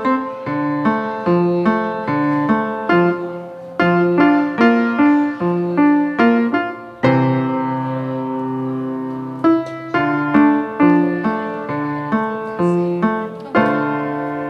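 Piano playing a slow melody over broken chords, about two to three notes a second, with one chord held for a couple of seconds midway before the notes resume.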